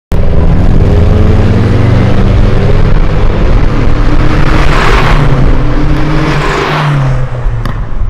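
Nissan Skyline DR30 RS Turbo's FJ20ET turbocharged four-cylinder engine accelerating under load, its pitch climbing, dropping about three seconds in, then climbing again. There are two loud rushes of noise about five and six and a half seconds in.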